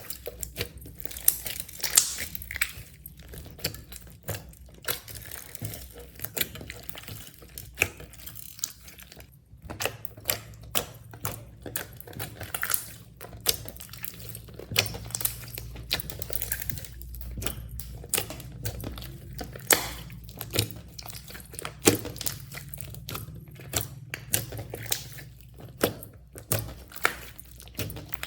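Slime being kneaded and mixed by hand, with irregular sticky clicks and pops several times a second.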